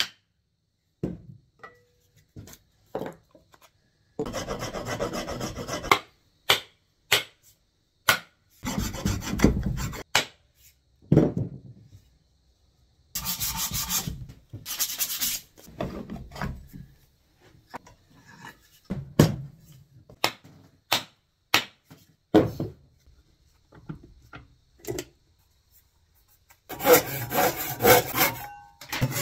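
Hand tools working a wooden axe handle: sharp mallet knocks seating the axe head, stretches of rasping strokes along the wood, and a run of hand-sawing through the handle near the end.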